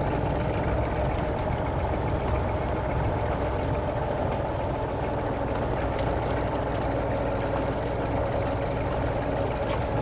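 Diesel engine of a narrow-gauge forest railway train running steadily under way, heard from on board the moving train.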